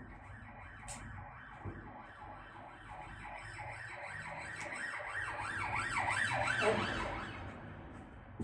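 Ambulance siren passing by, a rapid rising-and-falling yelp that grows louder to a peak about seven seconds in and then fades away.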